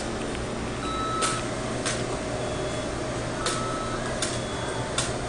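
Fast-food restaurant counter and kitchen noise: a steady hum with a few short electronic beeps, each with a click, spaced a second or two apart.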